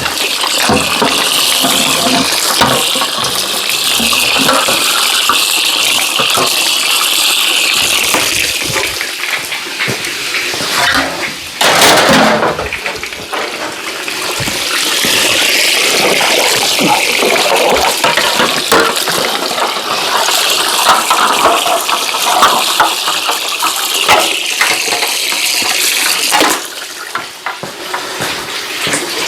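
Water running hard from a tap and splashing over refrigerator parts being rinsed, with small knocks of the parts being handled and a brief louder gush about twelve seconds in.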